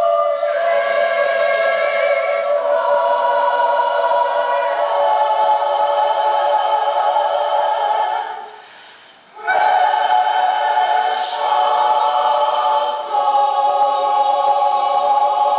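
Large mixed choir singing long held chords that change every couple of seconds. It breaks off about eight seconds in and comes back in together about a second later.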